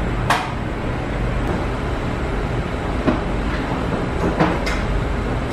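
Steady, even background rush from an unseen machine or room ventilation, with a few light clicks and taps about a third of a second in and again near the end.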